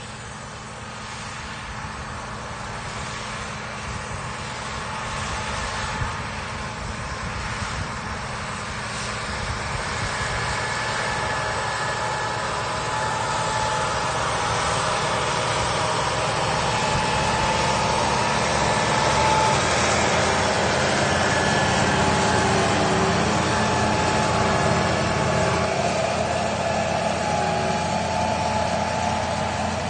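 Farm tractor engines working under load as they pull tillage implements across a field, getting louder as they come closer, with a thin steady whine over the engine note in the second half.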